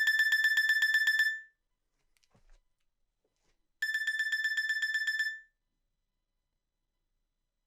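Nokia N95 mobile phone alarm clock tone: bursts of a high beeping tone pulsing about ten times a second, each burst about a second and a half long and repeating every four seconds. One burst ends just over a second in and the next sounds about four seconds in, with silence between.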